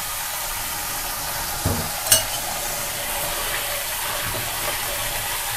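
Raw chicken wings being stirred and washed by hand in a bowl of salted water, a steady wet hiss with a soft knock and a sharp clink about two seconds in.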